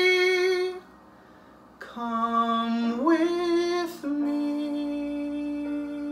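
A man's voice holding the closing notes of a slow song. The first held note ends within the first second. After a second of quiet come new held notes that glide up in pitch at about three seconds, and a long final note that begins about four seconds in and fades.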